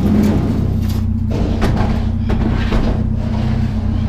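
Vehicle engine running at idle with a steady low hum, with a few knocks and rattles over it.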